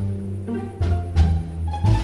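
Background music: a low bass line under short, separate notes that change about every half second.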